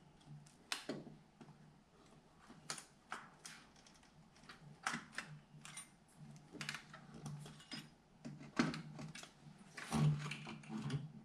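Irregular light clicks, taps and knocks of metal on metal as an aluminium motorcycle cylinder head is handled and fed up between the frame tubes onto the cylinder studs.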